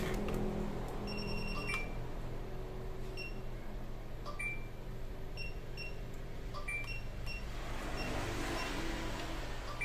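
About a dozen short, high beeps from a Hioki digital multimeter, scattered at irregular intervals as its probes are touched to points on a laptop motherboard. A few faint clicks and a steady low hum lie underneath.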